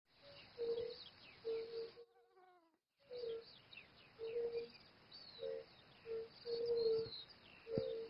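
A chorus of European fire-bellied toads calling from a pond: short, mellow, single-pitched hoots repeated about once a second, with several voices overlapping and small birds twittering high above them. The sound drops out for about a second between two and three seconds in, and a few low thumps come near the end.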